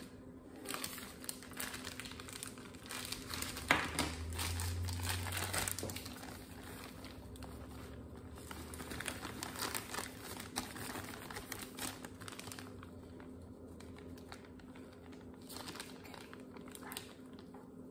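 Plastic powdered-sugar bag crinkling and rustling as it is handled and tipped to pour into a measuring cup, with one sharp knock about four seconds in.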